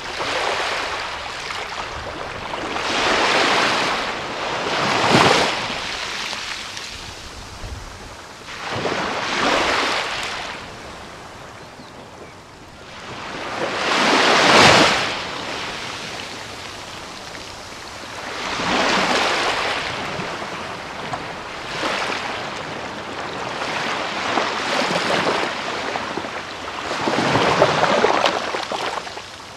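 Small sea waves breaking and washing up on a beach, each wash swelling and fading, one every few seconds.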